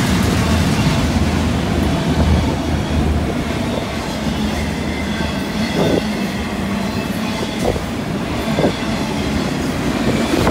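Freight train cars (autoracks and double-stack container cars) rolling past close by: a steady rumble of steel wheels on rail, with a few wheel knocks in the second half.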